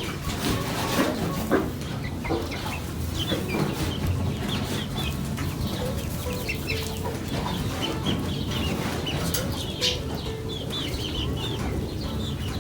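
Chickens clucking and chirping, with many short calls scattered throughout, over a steady low hum.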